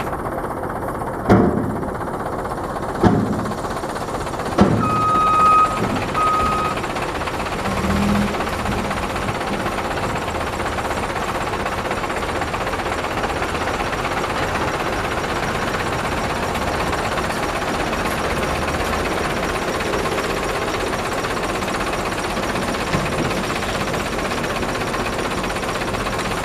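Dump truck's diesel engine running steadily as it unloads fill soil. In the first few seconds there are three sharp bangs about a second and a half apart, followed by two short beeps.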